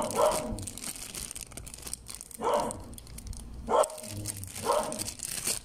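Clear plastic bag crinkling as hands handle the sealed USB charging cable inside it. Five short, loud bark-like sounds stand out over the crinkling.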